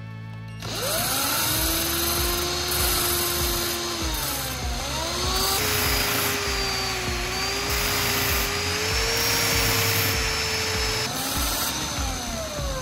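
Cordless drill running, spinning a homemade bottle-cap grinding disc as the tip of a thin metal strip is ground against it. The motor's pitch spins up about a second in, dips briefly about four seconds in, and winds down near the end.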